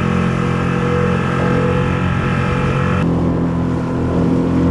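Mercury 6 hp outboard motor running steadily under way, with its tone changing abruptly about three seconds in.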